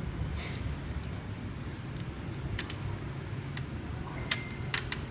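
A handful of short sharp clicks and taps from laptop parts and tools being handled, most of them in the second half, over a steady low hum.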